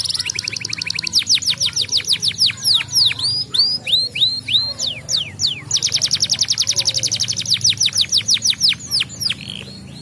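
Yellow domestic canary singing: rapid trills of quickly repeated notes alternating with runs of downward-sweeping whistles. The song breaks off about a second before the end.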